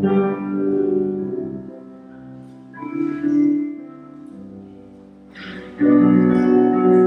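Recessional music closing the Mass: a keyboard instrument playing slow chords, a new chord struck about every three seconds and fading away between them.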